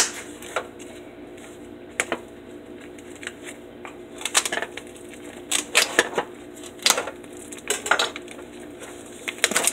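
Kitchen items being handled on a countertop: scattered light clinks and knocks, more of them in the second half, over a faint steady hum.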